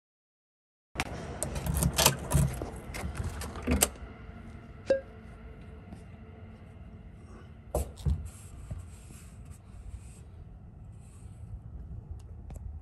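Keys jangling and rattling at the front-door lock as the door is unlocked, starting about a second in and lasting a few seconds. A steady low hum and a few separate knocks follow.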